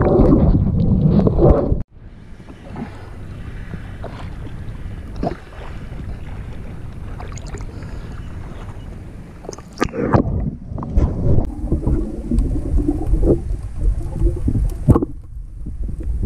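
Muffled water noise from a spearfisher's action camera swimming and diving, heard through the camera housing: rumbling and sloshing with scattered knocks. It drops suddenly to a quieter steady hiss about two seconds in, and turns louder and busier again with knocks from about ten seconds in.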